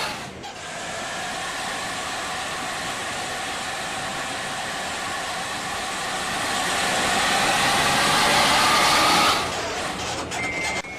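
Bus running on the road, a steady rush of engine and road noise that swells louder and then drops off sharply about nine seconds in. A single high steady tone comes in near the end.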